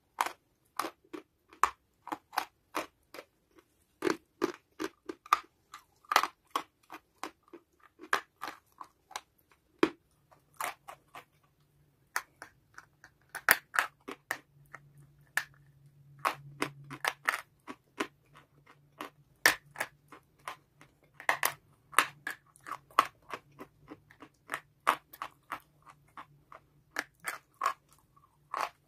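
Biting and chewing of a lump of white chalky clay: a dense, irregular run of short, dry crunches, about three a second.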